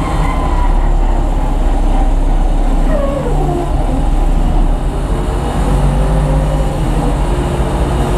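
Steady low rumble of jet aircraft engines on the apron, with a whining tone that falls in pitch about three seconds in and slowly drifting whines after it.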